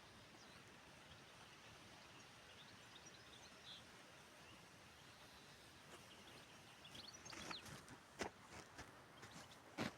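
Faint outdoor ambience with a steady hiss and faint, scattered high bird chirps. In the last few seconds a run of sharp clicks comes in, the loudest near the end.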